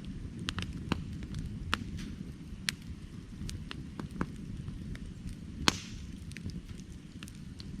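Firewood burning, with a steady low rumble of flame and irregular sharp crackles and pops from the wood. One pop, a little past two-thirds of the way through, is louder than the rest.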